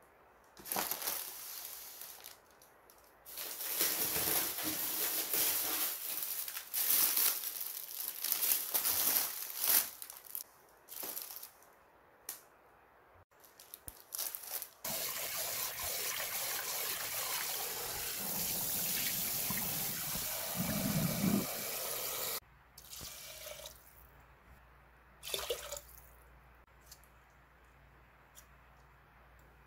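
Plastic produce bags and packaging crinkling as groceries are handled for the first dozen seconds. Then a kitchen tap runs steadily for about seven seconds and stops, followed by a few light handling sounds.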